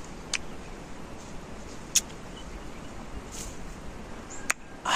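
Mouth sounds of a person chewing a juicy orange: a few sharp wet smacks over a steady background hiss. Right at the end comes a short loud hiss of breath drawn through the teeth, a reaction to the orange's sour taste.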